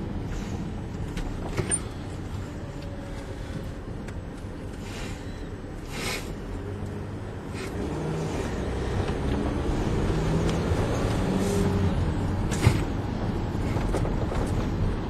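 Mercedes Sprinter van driving, engine and road noise heard from inside the cab; the engine note gets louder and more prominent in the second half. A few sharp knocks, one loud one near the end, cut through the drone.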